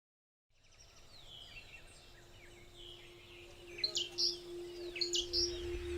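Birds calling, fading in from silence: falling whistled calls and sharp chirps that grow louder toward the end, over a steady low hum.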